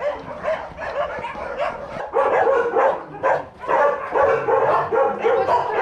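Many dogs barking at once, their barks overlapping without pause.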